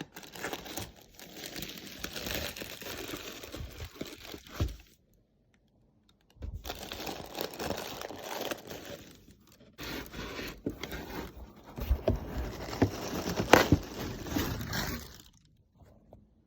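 Cardboard and plastic packaging being handled: rustling, scraping and crinkling in several stretches with short pauses, and a few sharp clicks about two-thirds of the way through, as a boxed model car is pulled out of its packaging.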